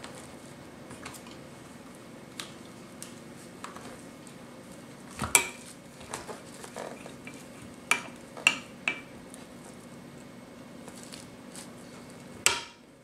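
Plastic spring clamps clacking as they are handled and clipped shut on a countertop: scattered sharp clicks, the loudest about five seconds in, a quick run of three around eight to nine seconds, and one near the end, over a faint steady hum.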